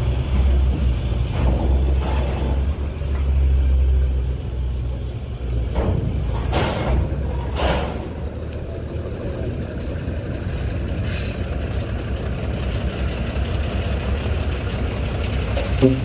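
Heavy flatbed truck's diesel engine running as it drives slowly by, loudest in the first few seconds and then easing off. There are two short air-brake hisses about six and a half and seven and a half seconds in.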